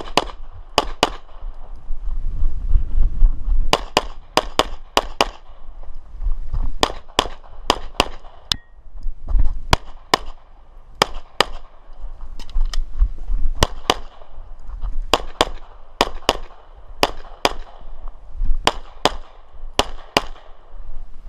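Glock 34 9mm pistol shooting a USPSA stage with 125-grain Blue Bullets: shots mostly in quick pairs and short strings, with pauses of a second or two between groups, about thirty shots in all.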